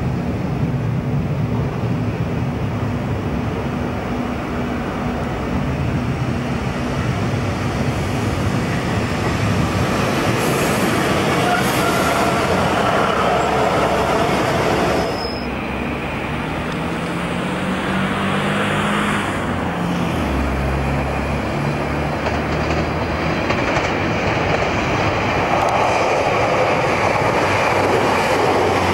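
Diesel multiple unit running through a station: a steady rumble of engine and wheels on the rails, with a high wheel squeal around ten to thirteen seconds in. After a sudden change about halfway, a diesel engine's note rises in steps, as when a train accelerates away.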